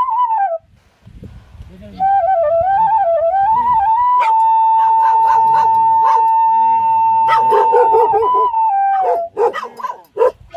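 Flute music: long held notes with ornamented, wavering runs. It breaks off about half a second in and comes back about two seconds in, with a few sharp clicks near the end.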